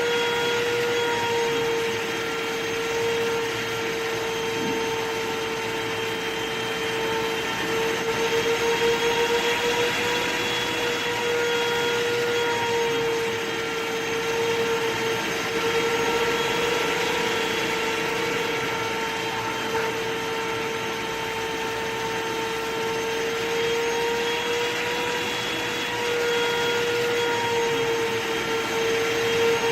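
Vacuum cleaner running steadily: an even motor whine over the rush of air, its pitch wavering slightly now and then.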